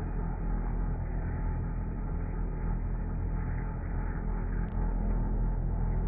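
Milling machine running steadily with a low hum as a drill bit cuts into a thick steel plate, with one short click about three-quarters of the way through.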